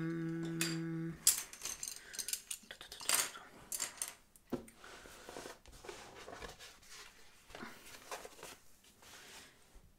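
Several wooden-handled paintbrushes clicking and clattering against each other and the wooden tabletop as they are gathered up and set down, followed by softer handling as the lid of a cardboard box is lifted off.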